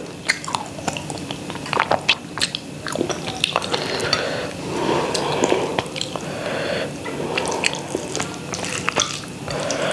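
Close-up eating sounds: fingers mixing rice and chicken curry on a plate, and chewing with many short wet mouth clicks.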